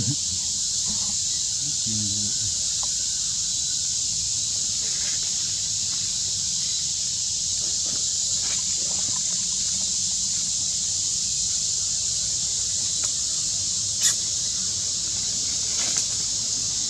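A steady high-pitched insect chorus hissing throughout, with a sharp click about fourteen seconds in and a fainter one near the end.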